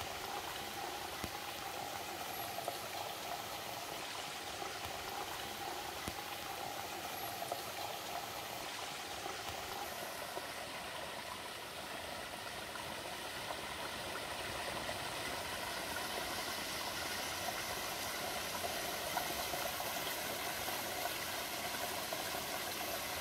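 Shallow mountain stream running over rocks, a steady rush and trickle of water.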